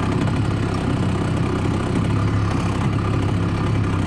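Grass-trimmer engine on a homemade long-tail boat drive, idling steadily.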